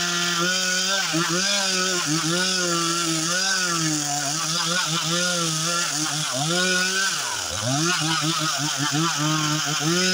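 Two-stroke chainsaw running under load, ripping lengthwise through a log. The engine pitch wavers constantly as the chain bites, then drops sharply about seven seconds in and climbs back up.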